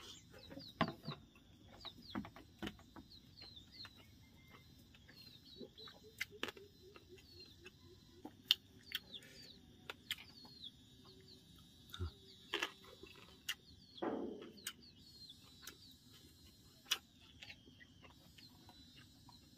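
Birds chirping in quick, repeated high notes, with chickens clucking, over scattered sharp clicks and smacks of someone eating sticky rice and grilled fish by hand.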